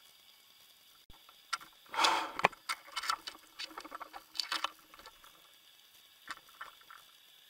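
Irregular clicks and scraping rattles picked up underwater, densest about two seconds in, again around four and a half seconds, with a few last clicks near the end.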